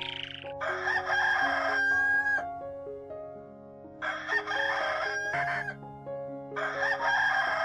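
Rooster crowing three times, each crow about a second and a half long, the last still going as the sound ends, over soft background music.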